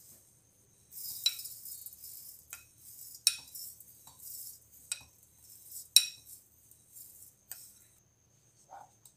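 Dry-roasted sesame seed mixture poured from a glass bowl into a steel mixer jar: a dry, hissing slide of seeds, with a metal spoon scraping and clinking sharply against the bowl and jar about half a dozen times.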